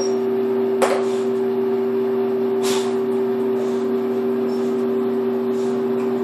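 A steady low hum holding two tones, with a single sharp click about a second in and a short rustle near three seconds.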